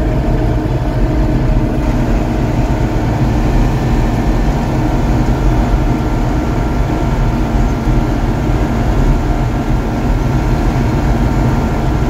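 White 145 tractor's diesel engine running steadily at road speed while pulling a loaded corn wagon, heard from inside the cab, a constant low drone with no change in pitch.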